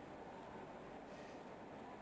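Faint, steady low rumble of station ambience, with a double-deck train standing at the platform, doors open; no distinct events.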